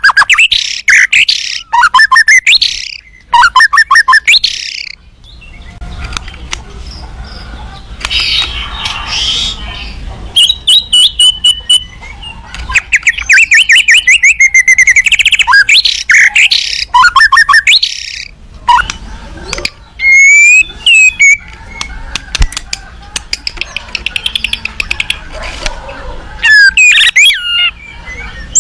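White-rumped shama (murai batu) singing loudly in agitated bursts. Its phrases are rapid runs of repeated notes, very high fast volleys and swooping whistles, broken by short pauses. This is the aroused, emotional song that provokes other shamas to answer.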